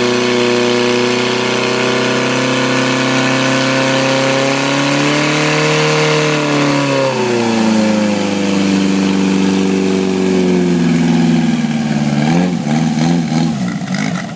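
Portable fire pump's petrol engine running at high revs under load, driving water through the attack hoses. Its pitch climbs about five seconds in and falls back around seven seconds. Near the end the engine is throttled down and its pitch wavers.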